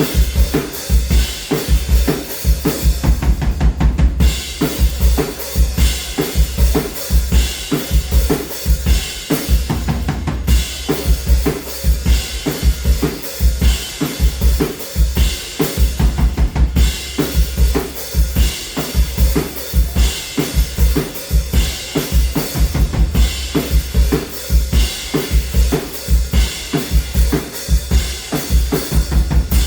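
Full drum kit played in a steady groove for a sound check: kick drum, snare and cymbals together, with the kick strong and regular throughout.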